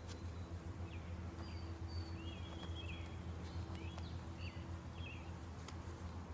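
Small birds chirping: a string of short chirps that rise and fall in pitch, over a steady low hum.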